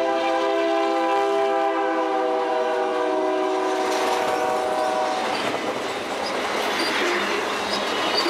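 Canadian Pacific SD40-2 diesel locomotive sounding its multi-note chime horn as it passes close by, one chord held for about five seconds. After the horn stops, the freight cars run past with a steady rumble and clatter of wheels on the rails.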